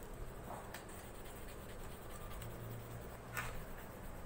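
Faint scratching of a coloured pencil shading across paper, with a few short strokes standing out.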